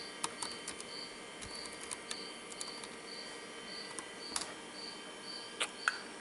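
Computer keyboard keys being typed, a dozen or so separate clicks at an uneven pace, with two louder presses near the end.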